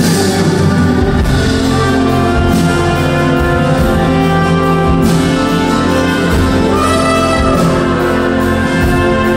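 Live band music played on stage in a large theatre hall, heard from a high balcony: loud, steady ensemble playing with sustained chords and a few cymbal-like crashes.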